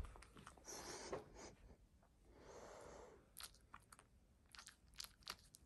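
Faint wet licking and chewing clicks of a cat eating treat crumbs from a hand, scattered and irregular, thickest in the second half, with one soft hushing breath-like noise about halfway through.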